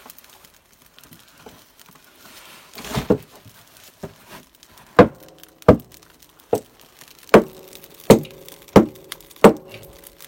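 Kindling being split from wood with sharp chopping blows: a single knock about three seconds in, then a steady run of strikes about one every 0.7 seconds from about five seconds in, each with a brief ringing tone.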